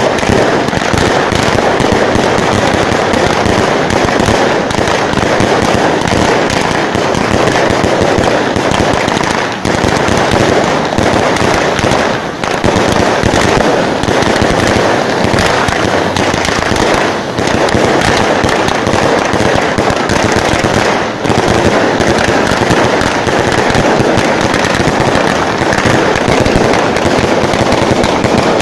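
Fireworks going off in a loud, dense, continuous rapid crackle of bangs, with a few momentary lulls.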